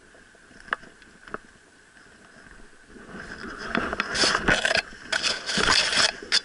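Dry grass and clothing rustling and scraping against a body-worn action camera while walking through brush. It comes in loud, ragged bursts over the last three seconds or so, after two sharp clicks about a second in.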